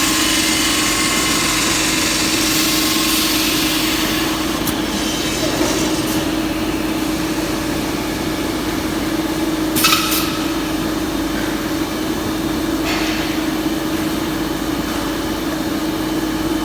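A machine running steadily, with a constant hum and a hiss, and one short sharp noise about ten seconds in.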